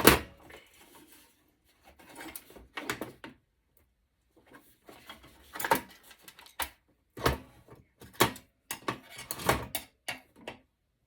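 Scattered knocks and clatters of metal parts and circuit boards being handled as electronic equipment is taken apart by hand. The loudest knock comes right at the start, and the rest are irregular, with short quiet gaps between them.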